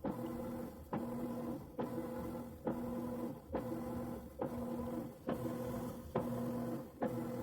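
Washing machine agitating: its motor hums in even strokes a little under a second apart, each one starting with a click as the drive reverses.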